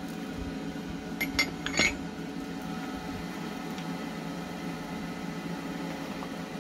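Forged steel candle-holder piece set down on an anvil face: three quick metal clinks just over a second in, the last the loudest, over a steady low hum.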